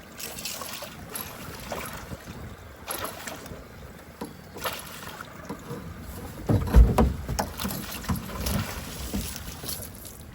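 Water sloshing and splashing with wind on the microphone, broken by scattered knocks and one heavy low thump or splash about seven seconds in.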